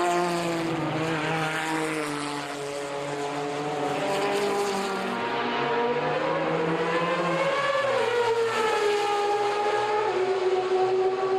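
Sports-prototype racing car engine running at high revs. Its pitch wavers, climbs for a few seconds, drops sharply about eight seconds in, then holds fairly steady.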